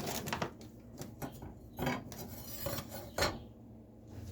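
Scattered clinks and knocks of hard objects being handled and set down, several short sharp strikes spread over a few seconds.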